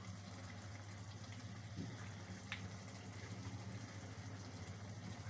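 Faint steady hiss and low hum of a pot of pulao rice simmering on a gas burner as its last water cooks off, with one small click about two and a half seconds in.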